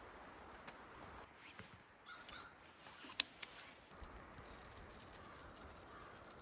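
Faint cawing of a bird in a quiet outdoor setting, with one sharp click about three seconds in.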